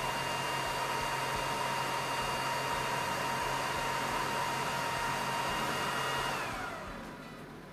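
The fans of an xTool D1 Pro laser engraver run steadily as a rushing-air hiss with a constant whine. About six seconds in, the whine slides down in pitch and the noise fades as the fans spin down at the end of the cut.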